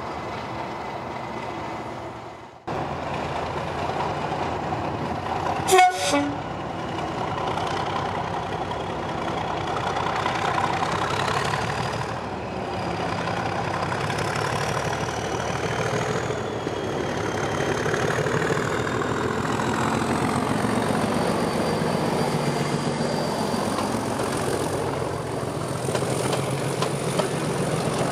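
A Class 37 diesel-electric locomotive, with an English Electric V12 engine, hauls a passenger train past, the engine working with a high whine that rises in pitch as it comes closer. A brief, loud horn toot sounds about six seconds in. Near the end the coaches' wheels clatter over the rail joints as they pass.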